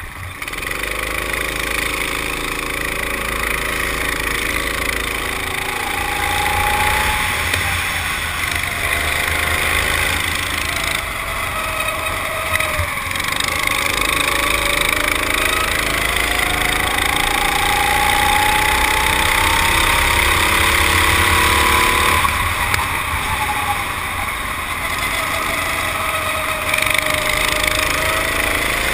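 Go-kart engine running at speed on the track, heard from on board the kart: its pitch climbs and falls with the throttle, with a long steady climb that drops away about three quarters of the way in, over a constant rushing noise.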